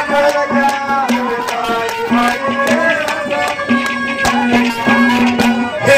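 Instrumental interlude of a live Haryanvi ragni: a melody instrument plays held and gliding notes over steady hand-drum strokes.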